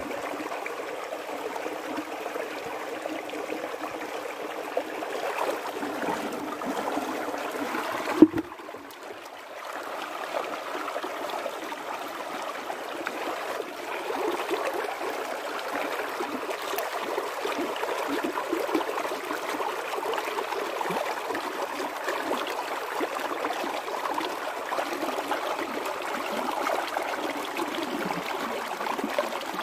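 Steady rush of running water, like a small stream flowing. A single sharp knock about eight seconds in, after which the water is briefly quieter.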